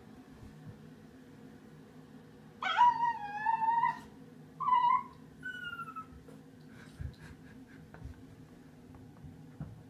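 Cockapoo puppy whining: one long high, wavering whine about three seconds in, then two short whines, one rising and one falling, as it balks at going down the stairs. Later a few soft thumps as its paws step down onto the carpeted stairs.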